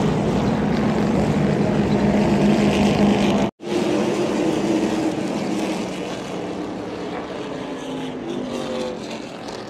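Race truck V8 engines droning as trucks circle the track, steady and loud. The sound cuts out for an instant about three and a half seconds in, then carries on and eases off somewhat over the last few seconds.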